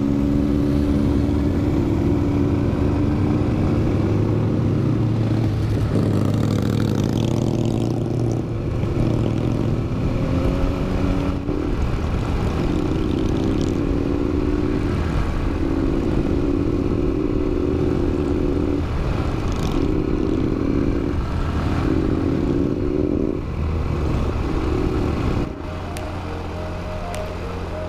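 Small underbone motorbike engine running while riding, its note rising and falling in stretches of a few seconds, over wind rushing past. Near the end the engine drops back and music comes in.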